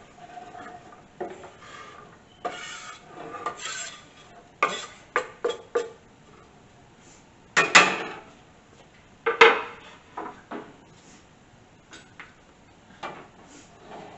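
Kitchen knife scraping and knocking on a wooden cutting board as chopped onion and garlic are pushed off it into a frying pan: a run of short scrapes and clicks, with two louder knocks about eight and nine and a half seconds in.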